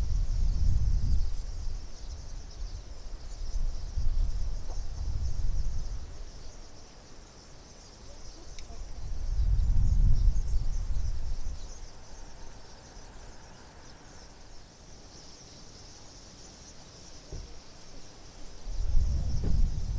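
Gusts of wind buffeting the microphone in low rumbles, loudest about a second in, around the middle, and again near the end. Under them runs a steady high chirring of insects.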